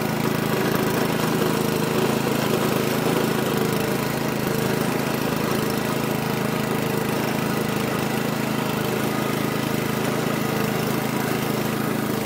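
Westwood ride-on mower's engine running at a steady speed as the mower drives along, with no revving.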